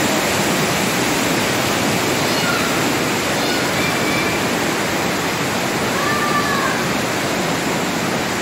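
Loud, steady rush of a mountain stream's whitewater pouring through a narrow rock gorge, an even roar with no breaks.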